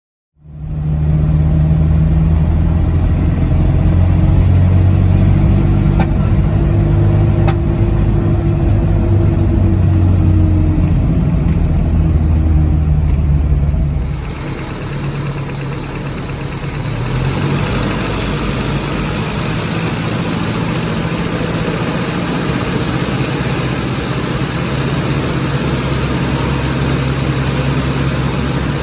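Toyota 20R four-cylinder engine with a Weber 32/36 carburetor running steadily. About halfway through the sound becomes a little quieter and hissier.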